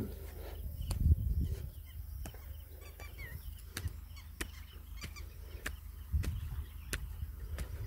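Outdoor ambience: wind buffets the microphone in low rumbling gusts, loudest about a second in and again near the end. Scattered sharp clicks and a few faint bird chirps come through between the gusts.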